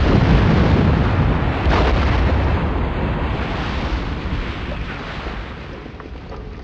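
Stock bomb-explosion sound effect: a rumbling blast with a second burst a little under two seconds in, then a long fade as the rumble dies away.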